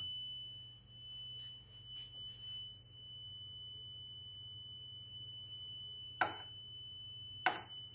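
Faint steady 3 kHz test tone, with two sharp clicks near the end, about a second apart, as range push-buttons on a Leader LFM-3616 wow & flutter meter are pressed.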